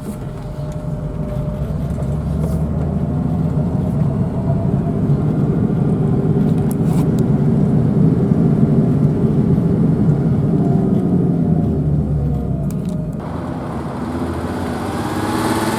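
BMW 325e's 2.7-litre M20 straight-six engine running, just brought back to life after years of sitting.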